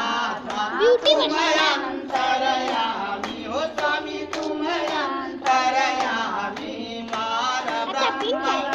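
A group of women singing a Hindu aarti hymn together, clapping their hands along with the song.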